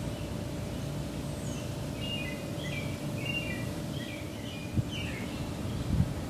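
A quick run of short, high chirping calls for about three seconds over a steady low outdoor rumble with a faint hum. Near the end come two dull thumps, the second the loudest.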